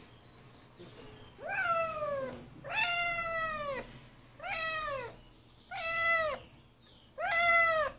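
A young black-and-white kitten meowing five times in quick succession, about one call every second and a half, each rising and then falling in pitch. These are insistent meows from a kitten shut in a small bathroom and wanting out.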